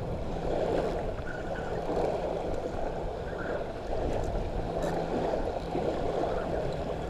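Steady wash of surf at the shoreline with wind on the microphone, under a low hum that comes and goes.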